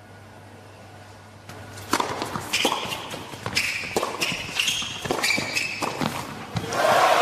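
Tennis rally on an indoor hard court: racquet strokes on the ball and shoe squeaks on the court, starting about two seconds in. Near the end a louder burst of crowd applause as the point ends.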